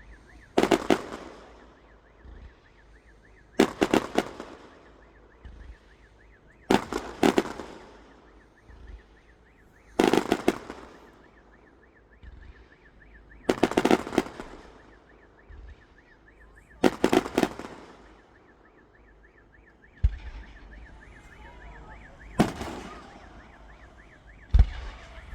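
Fireworks going off in a regular series: a cluster of sharp bangs about every three seconds, each trailing away over a second or so.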